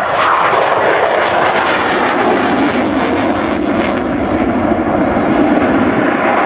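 F-16 fighter jet in flight, its engine noise a loud, steady roar throughout.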